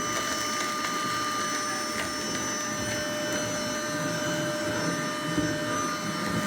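Cordless handheld vacuum running steadily on its high speed setting, a constant motor whine over the rush of suction air.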